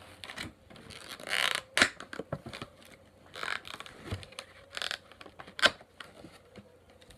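Clear plastic tray packaging being handled and pulled apart: irregular crinkles, scrapes and sharp clicks, the loudest snaps about two seconds in and again about six seconds in.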